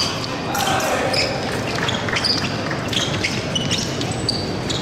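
Sports shoes squeaking and thudding on a hall floor in quick, irregular steps, with a murmur of voices underneath.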